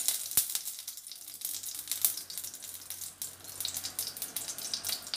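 Butter melting in hot oil in a stainless-steel kadai, sizzling with many small irregular crackles, and one sharp knock about half a second in.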